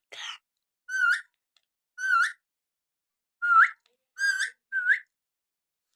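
Parrot whistling: about six short whistles, each dipping and then sweeping up in pitch, spaced about a second apart, with the last three coming closer together.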